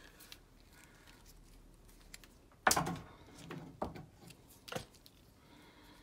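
Handling of a Wago 222 lever connector and stiff copper wires: one sharp plastic click a little under three seconds in, then a few lighter clicks and rustles as the wires are worked into place.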